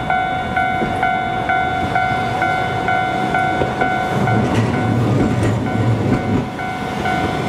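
Japanese level-crossing alarm bell ringing in an even, repeating ding of about two strikes a second while the barriers are down. From about halfway a Hankai Tramway streetcar rumbles in as it approaches the crossing.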